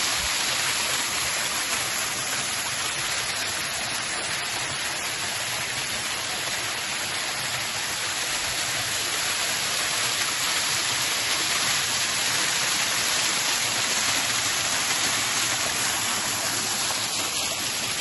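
Rushing water of a river, a steady even hiss.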